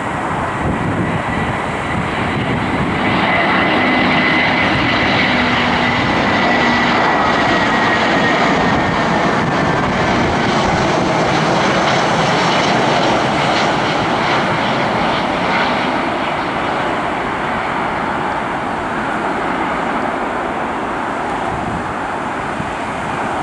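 Airbus A319 airliner's jet engines on final approach, passing close: a steady rush with a high whine that drifts slightly down in pitch. It is loudest for several seconds in the middle, then fades slowly as the aircraft flies on to the runway.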